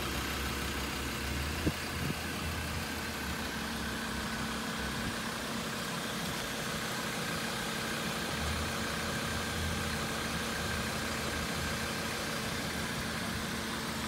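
Ford Ranger's 3.2-litre five-cylinder turbodiesel idling steadily, with one brief click a little under two seconds in.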